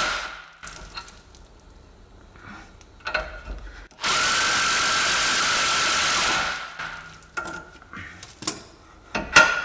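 A power tool runs steadily for about two and a half seconds from about four seconds in, then winds down. It is working on a seized steering link nut, and something spins, but not the nut. Metallic clicks and clanks of tools on the suspension come before and after, with a sharp metal knock near the end.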